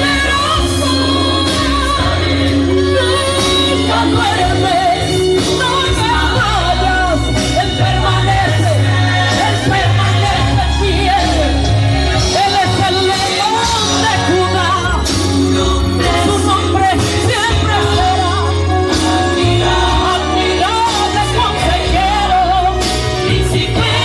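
Christian worship music: a singing voice carrying a melody over a steady bass accompaniment.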